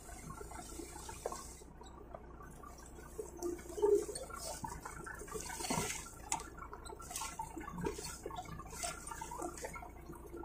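Seawater streaming and dripping from the hoisted cod end of a shrimp trawl net onto the deck, with scattered splashes and a few knocks.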